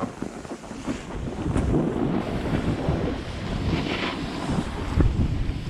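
Wind buffeting the microphone of a camera carried by a snowboarder riding down a slope: an uneven low rumble and rush that swells and dips.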